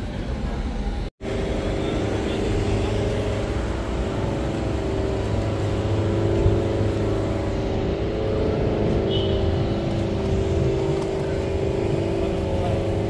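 Street traffic noise: a steady droning hum over a low rumble of engines. The sound cuts out for a moment about a second in.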